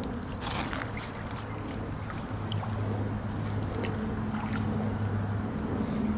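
A small splash and water sloshing as a mink slips into shallow pond water to hunt fish, over a steady low motor hum.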